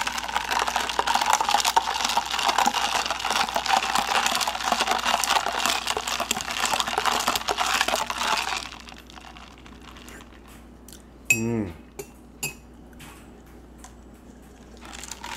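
A spoon stirring a coffee drink in a cup, clinking rapidly against the sides for about nine seconds before stopping, with a couple of single clinks afterwards. The stirring is to mix in coffee that has settled to the bottom.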